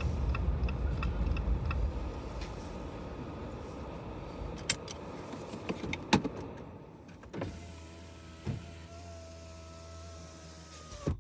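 Car driving slowly and pulling in to park, heard from inside the cabin: engine and road rumble easing off as it slows, with a few sharp clicks. The engine then idles with a steady hum and cuts off suddenly near the end as it is switched off.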